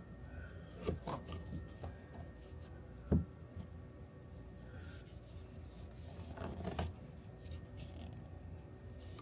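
Faint handling noise as a recessed LED ceiling light is pushed into its hole in a fabric headliner: scattered clicks and rubbing, with a louder knock about three seconds in.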